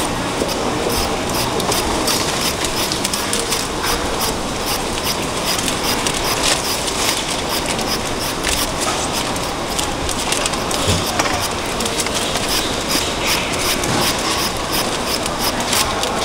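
Quick, irregular scraping strokes of a small hand blade peeling the skin off an unripe green mango, over a steady background din.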